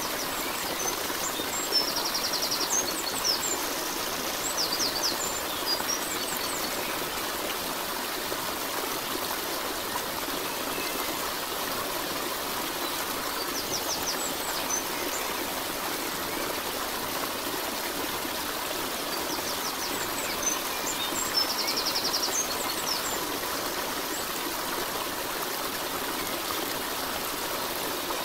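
Steady rush of a flowing stream. Short high bird chirps and trills come in about two seconds in, again around fourteen seconds, and around twenty-one seconds.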